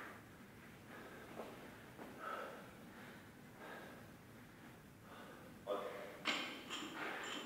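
A man breathing hard between sets, then a few sharper, louder breaths about six seconds in as he braces over a barbell.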